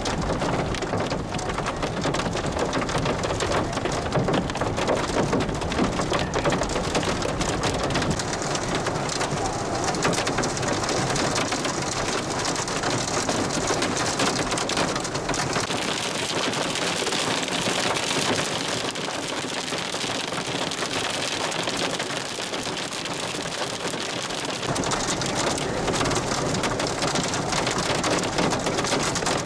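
Hail hitting the roof and windshield of a moving vehicle, a dense, continuous clatter of countless small impacts.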